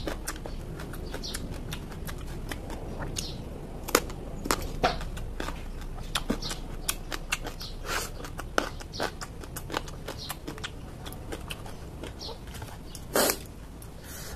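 Close-up chewing and crunching of crisp raw vegetables: an irregular run of sharp crunches and mouth clicks, with one louder crunch near the end.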